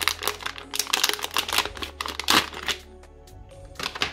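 Crinkling of a metallised anti-static bag and a clear plastic bag being handled as a small electronics module is pulled out. It is loud for about the first three seconds, then dies away, with one last rustle near the end. Soft background music plays underneath.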